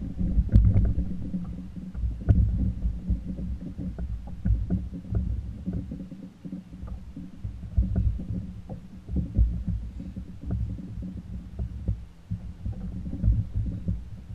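Low rumble and irregular thumps of water against a kayak hull, picked up through the camera mounted on the kayak, with scattered small clicks.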